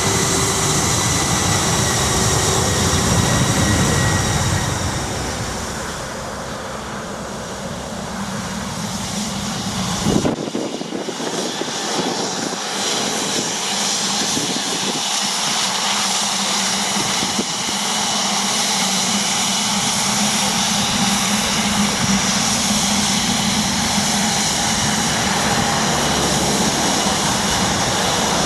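Dassault Falcon 7X business jet's three turbofan engines whining steadily at taxi power close by. The deep rumble beneath the whine drops away suddenly about a third of the way in.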